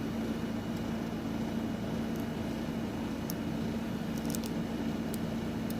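Small power tool motor running steadily on a low speed setting, a constant hum with a few faint ticks, as it works into the pins of a padlock core.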